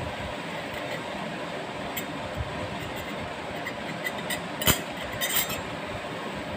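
Steady rushing background noise, with a few light clicks and one sharper clink just under five seconds in as food is handled in a glass baking dish.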